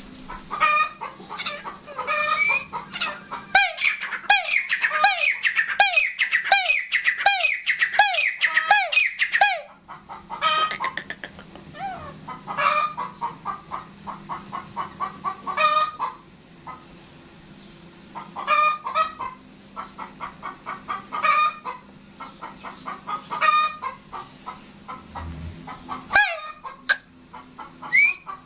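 Gray francolin calling: a fast run of loud, repeated notes for about the first ten seconds, then shorter calls every two or three seconds.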